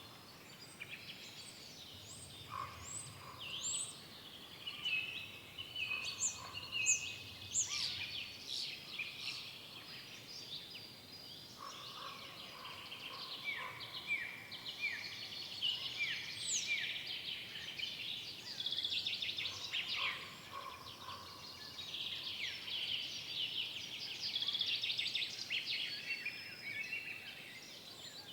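Forest songbirds singing over one another in a busy dawn-chorus-like mix of trills, chirps and whistles, including a run of short falling notes partway through, over a faint steady background hiss.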